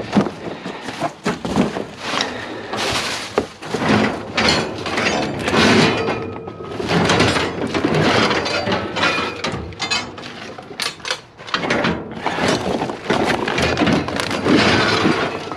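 Loose scrap and junk clattering and crashing as it is rummaged through and tossed about, a long run of sharp knocks, bangs and clinks.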